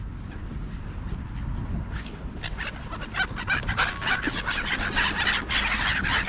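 A flock of gulls calling, a thick chatter of short, sharp cries that starts about two and a half seconds in and grows louder and busier as they crowd in to feed. A low rumble runs underneath.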